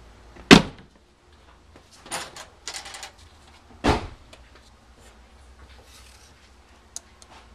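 Doors and drawers being banged. A sharp, loud bang comes about half a second in, clattering follows a second and a half later, and another bang comes about four seconds in as a red metal tool cabinet's drawer is pulled open.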